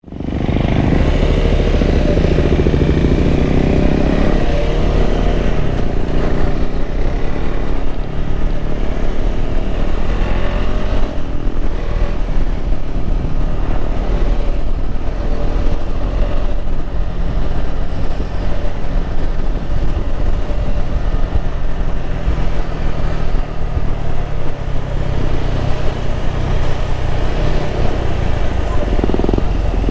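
KTM 390 Adventure's single-cylinder engine running steadily while riding, heard from on the bike, fading in at the start; the engine note swells and dips a few seconds in.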